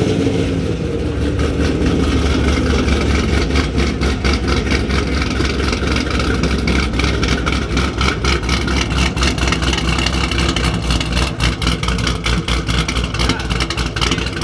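A car engine idling just after being started, a steady low rumble. In the second half the note turns more uneven and choppy.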